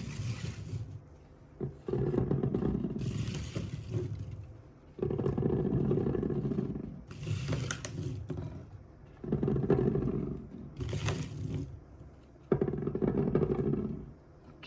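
Balls rolling and rumbling down a wooden marble-run slider, in repeated runs of one to three seconds each with short pauses between them.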